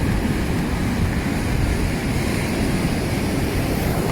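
Steady rush of ocean surf breaking on the shore, mixed with wind rumbling on the microphone.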